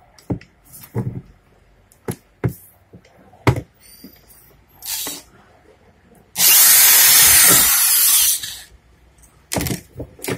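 A cordless drill-driver runs for about two seconds as it backs a screw out of an angle grinder's gear housing. Short clicks and knocks of the grinder and tools being handled come before and after it.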